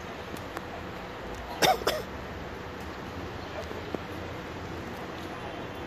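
A person coughs twice in quick succession, close and loud, over a steady background rumble of street noise.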